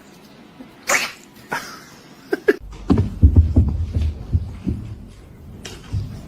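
A cat making noise: a short, sharp burst about a second in, then a stretch of low rumbling noise with short knocks from about two and a half seconds in.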